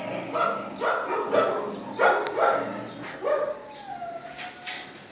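Dogs barking in play, a quick run of short barks and yips, then a drawn-out whine about four seconds in.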